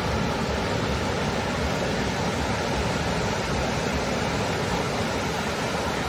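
Ocean surf breaking and washing over the shallows of a sandy beach, heard as a steady, even rush of noise.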